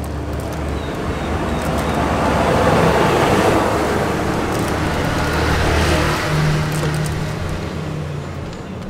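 A motor vehicle passing close by on the street, its engine and tyre noise swelling to a peak about three seconds in and fading toward the end, with a low engine hum underneath.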